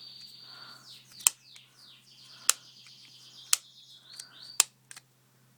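Four sharp plastic clicks about a second apart from handling a budget earbud charging case and its silicone cover, over a steady high chirping whistle with short falling glides.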